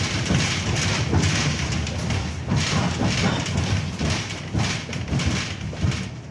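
KTM tram in motion, heard from inside the car: a continuous rolling rumble from wheels on the rails with frequent rattles and clatter from the running gear and car body.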